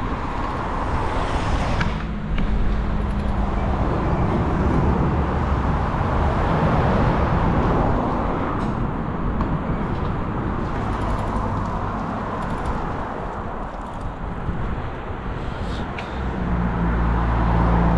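Wind rushing over the microphone of a bicycle-mounted camera while riding, over road traffic; a motor vehicle's engine runs close by about two seconds in and again near the end.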